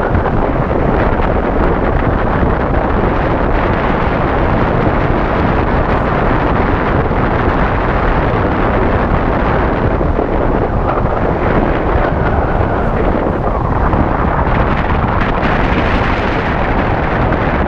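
Loud, steady wind noise from the airflow rushing over an action camera's microphone on a tandem paraglider in flight.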